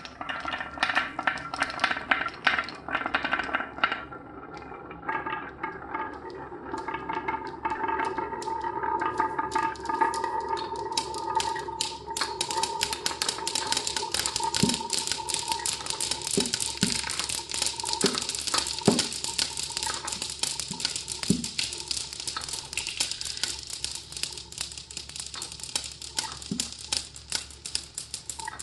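Marbles rattling and clicking down a marble run, a dense stream of small clicks that grows thicker and louder about twelve seconds in.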